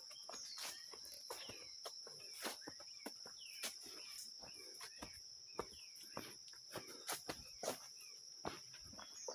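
Insects drone in a steady high whine while footsteps crunch irregularly on a dirt path with leaf litter, the step sounds being the loudest events, most of them in the second half. Short falling chirps of a small bird come several times in the first few seconds.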